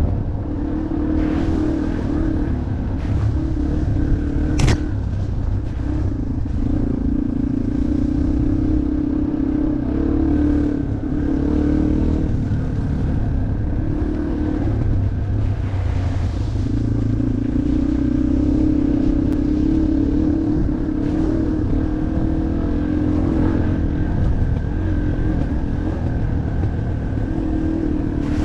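Off-road motorcycle engine running as it is ridden, its note holding, easing off and picking up again several times. There is a single sharp click about four and a half seconds in.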